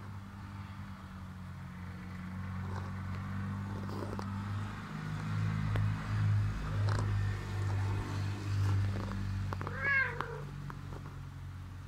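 Ginger street cat purring in low, pulsing beats while it rubs against a dog, then giving one short meow that rises and falls about ten seconds in.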